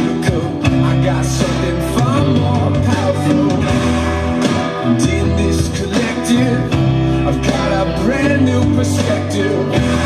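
Rock song with a steady drum beat, bass and electric guitar, during an instrumental stretch, with an electric guitar played along to it.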